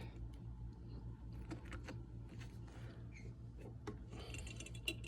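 Steel spring wire being wound by hand around a socket-set extension, giving faint, scattered clicks and scrapes of metal on metal, bunching up near the end. A steady low hum runs underneath.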